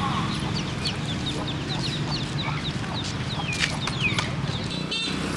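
Chickens clucking, with a run of short, high chirps repeating throughout, over a steady low hum.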